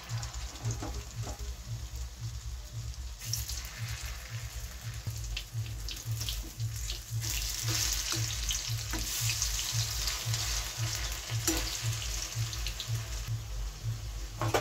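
Besan-battered okra pieces deep-frying in hot oil in a kadhai: a steady sizzle full of small crackles, growing louder about three seconds in. A low pulsing hum runs underneath.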